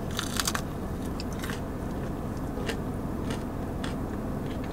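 Biting into a crispy breaded fried chicken finger: a quick run of crunches in the first half second, then chewing with scattered crisp clicks.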